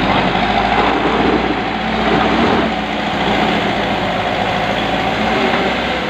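Bull HD76 backhoe loader's diesel engine running steadily under load, with a steady high whine over it, as the front bucket scoops into a pile of aggregate and lifts.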